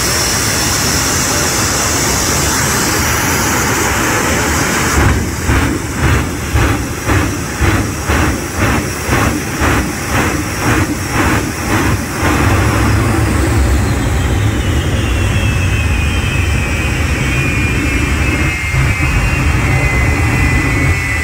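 Jet-powered fire truck's twin jet engines running at full blast. For about seven seconds the afterburners pulse in and out roughly twice a second, shooting flame. The engines then hold a steady blast, with a high turbine whine falling in pitch near the end.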